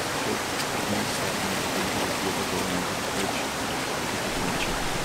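Steady rush of a mountain stream running over rocks and gravel.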